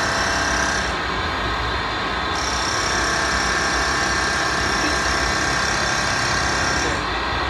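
CNC lathe's live-tool spindle driving a carbide form cutter as it mills a spline tooth along a bronze shaft: a steady machine whine with a high tone that drops out for about a second and a half, a second in, and again near the end.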